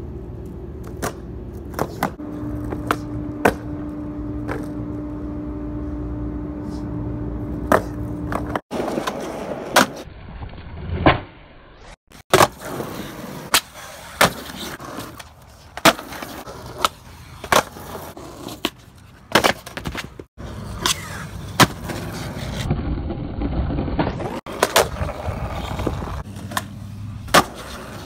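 Skateboard wheels rolling on rough concrete, with many sharp wooden clacks of the board's tail popping and the board landing and slapping down during street tricks. A steady hum runs under the first several seconds.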